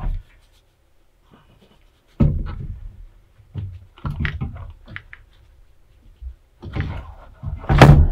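A new motorcycle battery being lowered by hand into the battery tray of a Harley Tri Glide: irregular knocks and scrapes of the battery case against the tray and wiring, ending with the loudest thunk near the end as it drops into place.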